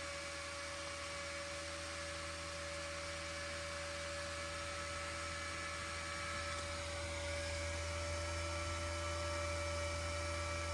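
LD247025S 24 V, 70 mm seven-blade brushless cooling fan running at speed (rated 5000 rpm): a steady whir with a steady whine and low hum, growing slightly louder about two-thirds of the way through.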